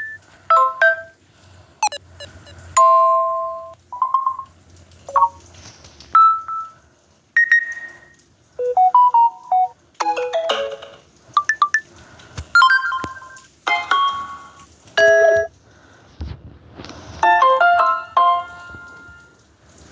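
Smartphone notification tones played one after another: short chimes, beeps and little multi-note jingles, each about a second long or less, with brief gaps between them.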